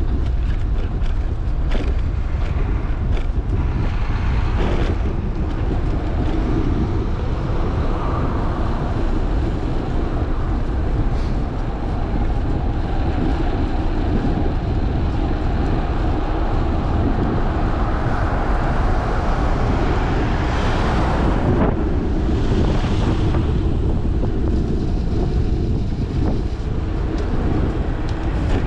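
Wind buffeting the microphone of a bicycle-mounted action camera while riding: a steady, heavy rumble, with a brighter hissing stretch about two-thirds of the way through.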